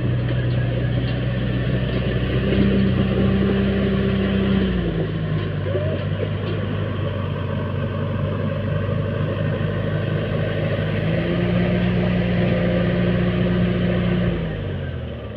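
Bulldozer's diesel engine running hard under load, its pitch stepping down about five seconds in, back up around eleven seconds, then dropping again as the sound fades near the end.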